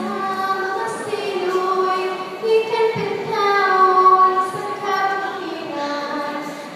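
A woman singing a solo into a microphone, holding long notes that glide from one pitch to the next.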